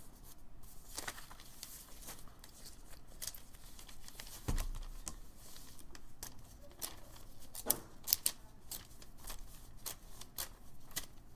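Dried newspaper papier-mâché shell being pried off a paper mask by hand: stiff paper crackling, rustling and tearing on and off, with a dull bump about four and a half seconds in and a few sharp cracks around eight seconds in.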